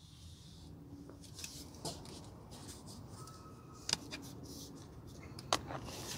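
Two sharp plastic clicks, about four and five and a half seconds in, from a car sun visor's vanity mirror cover being opened, over faint handling noise.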